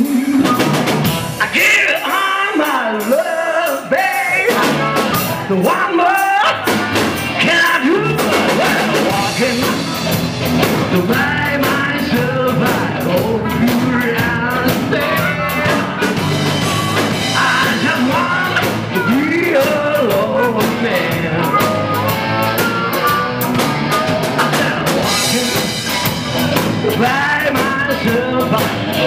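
Live rock band playing loudly: electric guitar with bass and drum kit, and a singer. The low end is thin for the first few seconds, and bass and drums fill it out after that.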